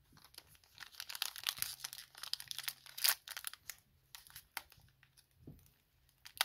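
Foil trading-card pack wrapper crinkling and tearing as it is pulled open by hand: dense crackling for the first three seconds or so, then sparser crackles.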